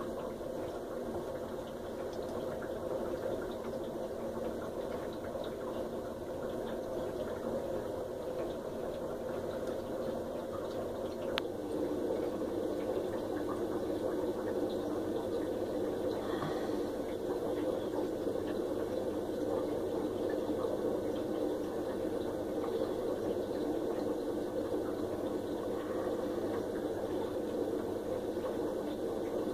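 Steady bubbling and hum of aeration in a copepod culture vessel. A single click comes about eleven seconds in, after which the sound gets slightly louder.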